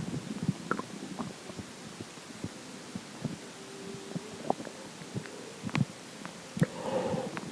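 Stomach growling: irregular gurgles and small pops, with a brief squeaky tone a little before the middle and a burst of gurgling near the end.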